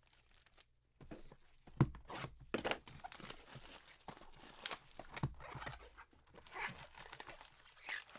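A cardboard hobby box of foil-wrapped trading-card packs being handled and opened: crinkling and rustling with scattered clicks, and a sharp knock about two seconds in.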